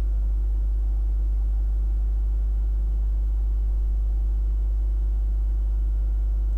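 Steady low electrical hum with a row of fainter higher overtones, unchanging throughout, with a single sharp click at the very end.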